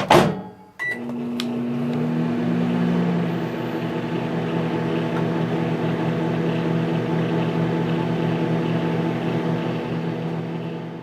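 Microwave oven being started: a door shuts, a short keypad beep sounds, then the oven runs with a steady hum.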